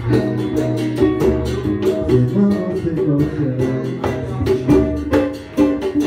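Live band music: guitars strummed and plucked over percussion keeping a steady beat.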